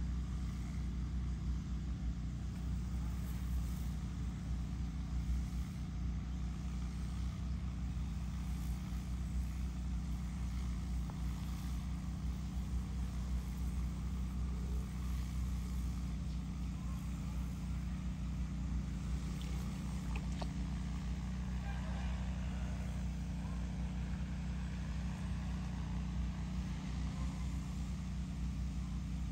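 DJI Agras T10 crop-spraying quadcopter drone in flight, its rotors giving a steady low drone that keeps an even level.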